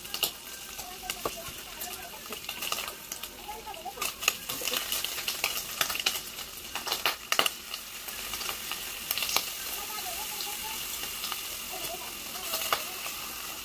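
Bacon frying in a pan on a gas stove: a steady sizzle with scattered sharp pops and crackles.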